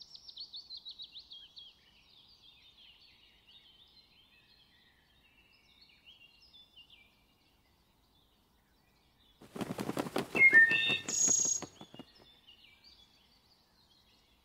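Northern cardinal song: a quick run of down-slurred whistled notes, then softer scattered chirps. About nine and a half seconds in, a loud rattling burst of clicks with a few short whistles lasts about two seconds.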